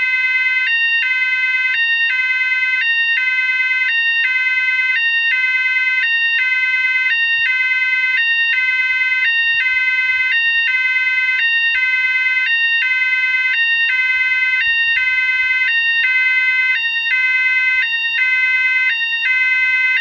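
GE AS363 electronic alarm sounder sounding a two-tone alternating signal: 550 Hz for 0.7 s, then 1000 Hz for 0.33 s, repeating about once a second. It is the pattern sold as the 'Safe Sound' tone. The tone is loud and buzzy, with many overtones.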